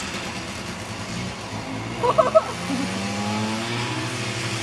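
Snowmobile engines running as the sleds race on the course, one engine rising in pitch as it accelerates in the second half. A short loud burst about two seconds in stands out above the engines.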